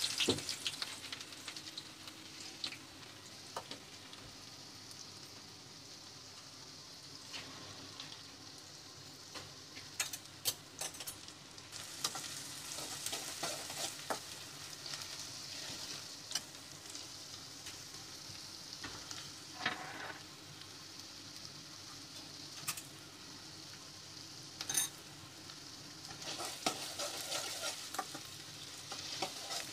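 Chopped onions sizzling as they fry in hot oil in a metal kadai, loudest at the very start as they go in. A spoon stirs through them, scraping and clicking against the pan now and then.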